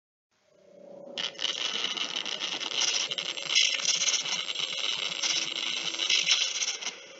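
Harsh crackling static noise with a faint steady hum underneath, fading in over the first second, with a sharp click about a second in; a glitch-style noise effect.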